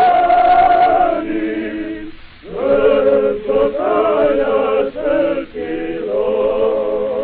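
Many men's voices chanting the cheer 'Živeo!' ('Long live!') in unison, a few long, drawn-out calls with a short break about two seconds in.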